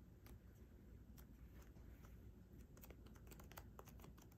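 Very faint, scattered small clicks and rustles of paper being handled and pressed down with the fingers, a glued paper pocket being pressed onto a paper tag.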